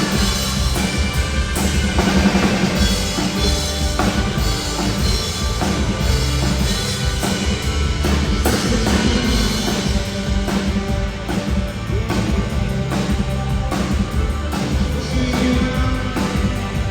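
Live rock band playing an instrumental passage: a drum kit keeping a steady beat with bass drum and snare under sustained bass and guitar chords.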